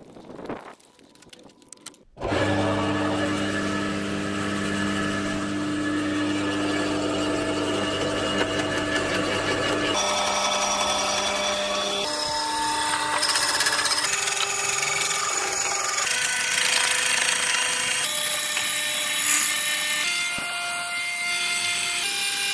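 Garden branch shredder switched on about two seconds in and running steadily, chewing up leafy branches fed into its hopper; its sound shifts abruptly several times in the second half.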